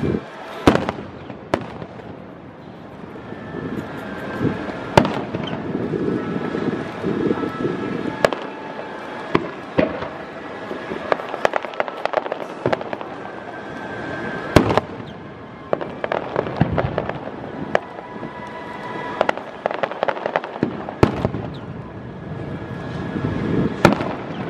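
Aerial firework shells bursting one after another, with loud bangs at irregular intervals and dense crackling between them.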